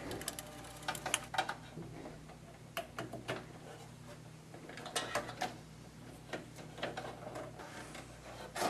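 Metal-on-metal handling sounds as an SSD in its steel adapter brackets is fitted into a PC's sheet-metal drive cage: scattered clicks and knocks, a few sharper than the rest. A steady low hum runs underneath.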